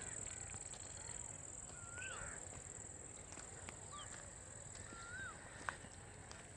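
Faint countryside ambience: a steady high-pitched insect drone, with a bird repeating a short rising-and-falling whistled call twice, a few seconds apart. A single sharp click sounds near the end.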